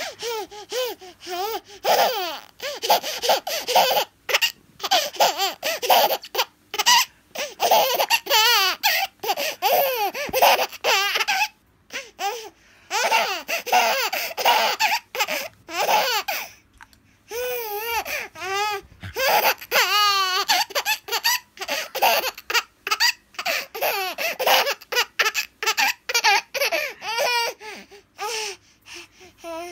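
Baby laughing in repeated bursts of giggles, with short breaks in between and pitch swooping up and down.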